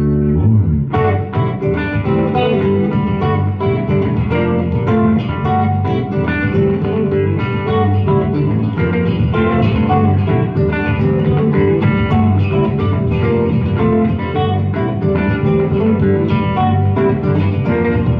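A trio of guitars playing an instrumental piece: a held chord gives way about a second in to busy picked notes over lower sustained notes.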